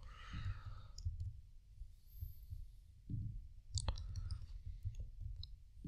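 A handful of faint, scattered clicks from a computer keyboard and mouse as code is being edited.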